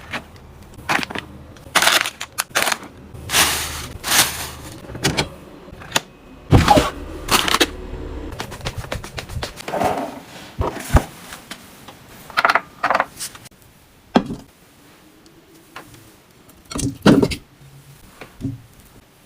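Snack packaging being handled and opened: irregular bursts of plastic crackling and rustling with a few sharp knocks.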